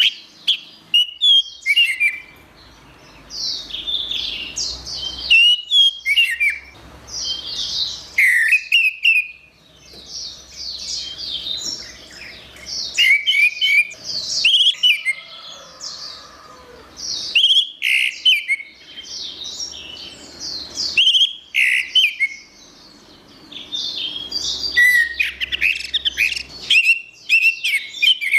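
Orange-headed thrush singing: quick phrases of varied whistled and chattering notes, each a second or two long, with short pauses between them.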